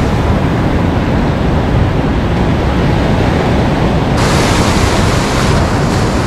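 Waves washing over a rocky shore with wind buffeting the microphone in a heavy, steady rumble. About four seconds in, the sound turns abruptly brighter and hissier.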